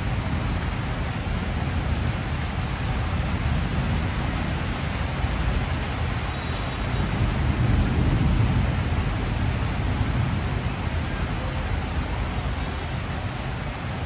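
Heavy rain pouring steadily onto a corrugated metal roof and trees, with a low rumble of distant thunder swelling for a few seconds about halfway through.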